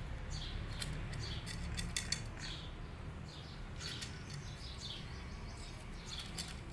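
A cat crunching dry kibble, irregular sharp crunches and clicks from its chewing.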